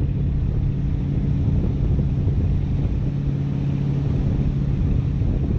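Wind buffeting the microphone of a camera flying under a parasail, a steady low rumble with a constant low hum running underneath it.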